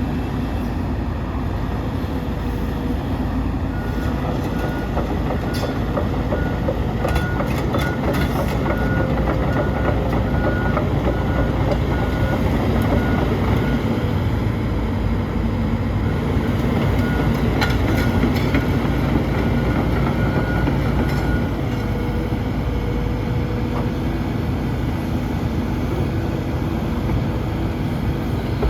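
Hitachi ZX135-6 excavator's diesel engine running steadily with heavy machine noise and scattered metallic clanks. A repeating high beep sounds for about ten seconds from a few seconds in, and again for a few seconds past the middle.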